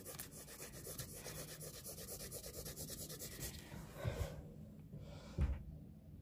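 Graphite pencil shading on plain paper in quick back-and-forth strokes, several a second, for about three and a half seconds. Then two soft low knocks as the paper is handled.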